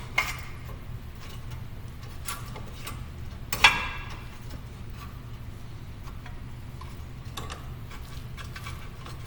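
Scattered metallic clicks and clinks of brake caliper bolts and hardware being handled and fitted against the hub, with one sharper clank about three and a half seconds in, over a steady low hum.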